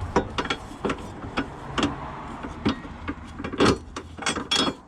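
Hand tools working on a car's rear suspension bolts: irregular metallic clicks and clanks a few times a second, with a few louder knocks near the end.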